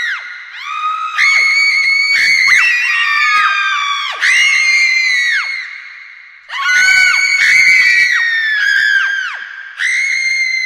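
Several girls screaming at once: long, high-pitched, overlapping screams whose pitch drops away as each one ends. They come in waves, each starting abruptly, about a second in, four seconds in, six and a half seconds in and near the end.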